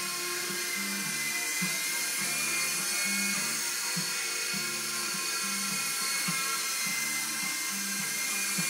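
Toy RC helicopter's small electric motors and rotors running in flight, a steady high-pitched whine with hiss. Background music with a repeating bass line plays along with it.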